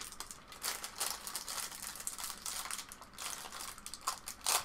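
Handling noise from small assembly parts and Allen keys being set down and picked through on a work mat: a run of light clicks and rustles, with a louder click near the end.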